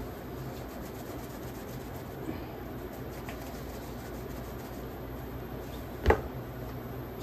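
Steady hum of a portable induction cooktop with soft pats as a ball of chapati dough is flattened between the palms, and one sharp knock about six seconds in as the dough goes down on a wooden board.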